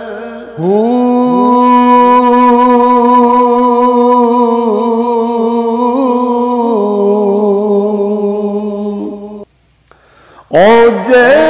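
A man's voice singing a Punjabi Sufi kalam, drawing out long held notes that step down in pitch twice. The voice breaks off about nine and a half seconds in and comes back loudly a second later.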